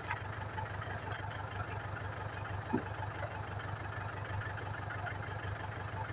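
Tractor engine running steadily at an even idle, with one short knock about three seconds in.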